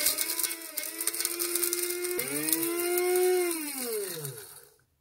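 Electric blade coffee grinder running, grinding dried stinging nettle leaves into powder. Its motor whines with a hiss of the ground leaves over it. About two seconds in the pitch jumps up again, and near the end the whine falls in pitch as the motor winds down and stops.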